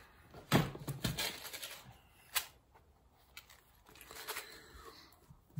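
Scattered light clicks and knocks with faint rustling: small hinge parts and clips being handled on a workbench.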